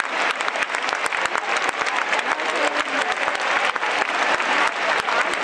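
Stadium crowd applauding steadily: a dense mass of hand claps, with a few voices calling out over it.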